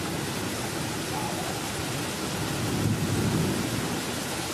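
Steady rain in a thunderstorm, with thunder rumbling low and swelling about three seconds in.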